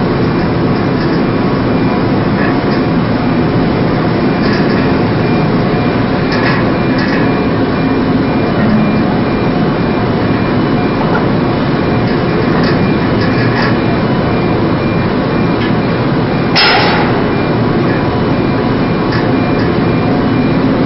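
Steady heavy running noise of a ship's engines and deck machinery on an anchor-handling vessel, with scattered light metallic knocks and one sharper clank about three-quarters of the way in.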